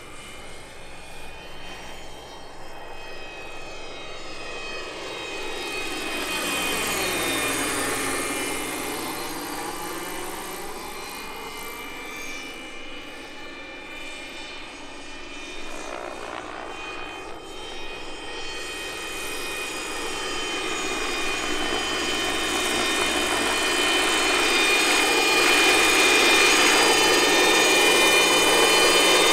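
Electric RC scale model of an Aérospatiale SA-315B Lama helicopter in flight: rotor noise mixed with the whining imitation-turbine sound of its Benedini sound module. The pitch slides down as it passes by, about a quarter of the way in and again near the middle, and the sound grows louder toward the end as the model comes in low.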